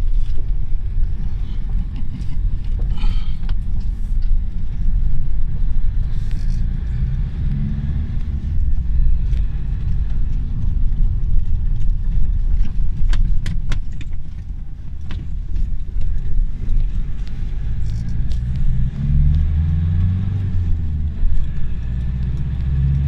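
Car cabin noise while driving: steady low engine and tyre rumble, with a few short sharp knocks about halfway through.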